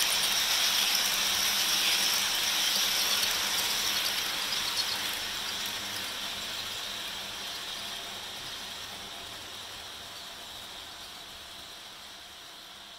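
Model train cars rolling past on the track, a steady high rushing clatter of wheels on rails that fades away steadily as the end of the train passes and moves off.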